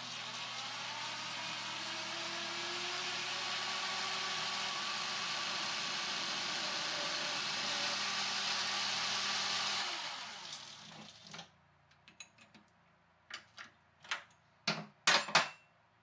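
Metal lathe running steadily while an end mill held in a drill chuck on the tool post trims a knife pivot pin held in a collet block. The lathe winds down about ten seconds in, followed by a few short clicks and knocks of metal parts being handled.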